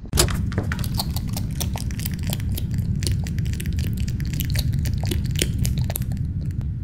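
Dense, irregular crackling and crunching over a steady low rumble.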